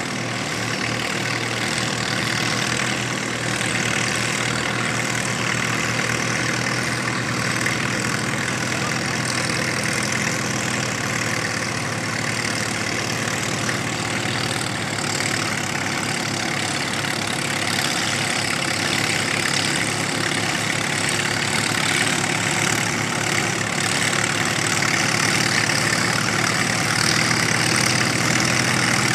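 Farmall Super M and Farmall M tractors' four-cylinder engines running together under load as the pair pulls a weight-transfer sled in a team pull. A steady engine drone with no revving, getting slightly louder near the end.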